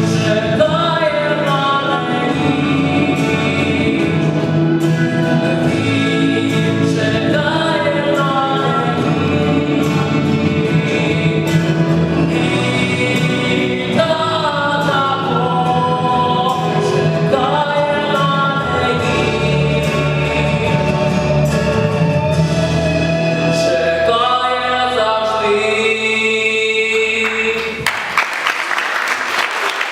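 Voices singing a song together over backing music. Near the end the music stops and gives way to applause.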